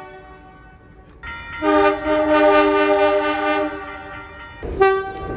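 A heritage railway locomotive sounds a multi-note chime: one long blast of about two and a half seconds, then a short toot near the end with a burst of noise under it.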